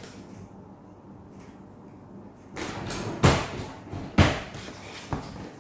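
Small cardboard product box being opened by hand: rustling and scraping of the flaps and the paper inside, with sharp knocks about three and four seconds in and a lighter one near the end.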